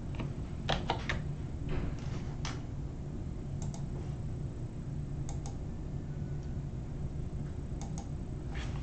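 Scattered light clicks of a computer keyboard, about a dozen irregular taps, over a low steady hum.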